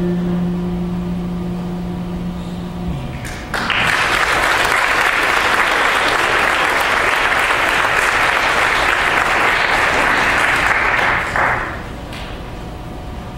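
The last note of an electric bass guitar rings steadily for about three seconds and stops, then an audience applauds for about eight seconds, the clapping ending abruptly near the end.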